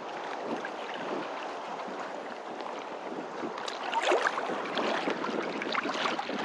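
Water sloshing and splashing irregularly close by, with wind on the microphone.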